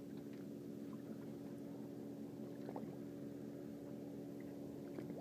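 Steady low hum of a boat's motor idling, with a few faint ticks over it.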